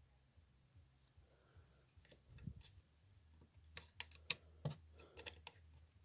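Plastic LEGO pieces clicking and snapping as fingers pull off and press on small plates of the model. A scatter of sharp clicks, one about two and a half seconds in and a quick cluster between about four and five and a half seconds in.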